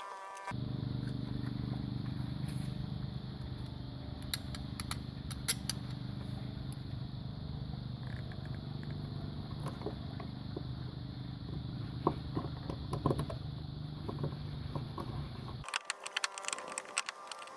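A motor running steadily with a low hum, scattered clicks and taps over it; it starts about half a second in and cuts off suddenly near the end.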